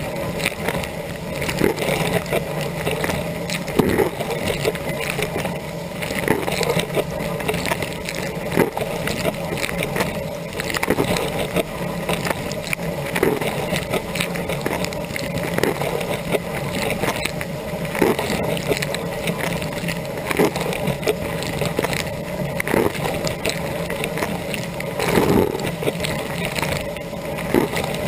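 Dishwasher on a rinse cycle, heard from inside the tub: water jets from the rotating spray arm spatter over the rack and the camera. A steady hum from the circulation pump runs underneath, and louder splashes come every second or two.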